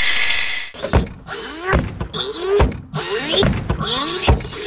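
Heavy, evenly paced thuds, about one every 0.8 s, like the footsteps of a walk-in fridge walking, each followed by short creaks. A brief hiss comes at the very start.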